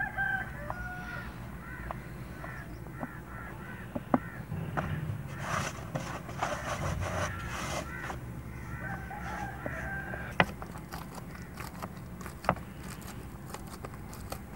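Chickens calling: runs of short repeated clucks near the start and again about two-thirds through, with a longer, louder crow in the middle. Under them are soft sounds of dough being kneaded by hand in a metal bowl, with a few sharp knocks.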